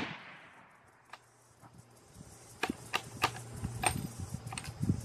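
The dying rumble and echo of a .375 CheyTac Improved rifle shot fired a moment earlier, fading out within about half a second. A few sharp clicks and ticks follow about halfway through.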